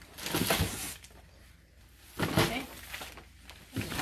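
Cardboard boxes and plastic-bagged packages being handled and rummaged through, in a few short bursts of rustling and knocking with quieter pauses between.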